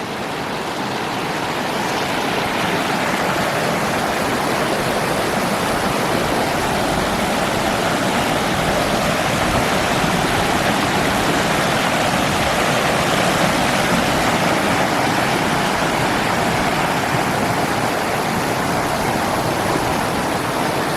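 Black Forest mountain stream rushing over rocks and small cascades, a steady wash of water that grows a little louder over the first couple of seconds and then holds even.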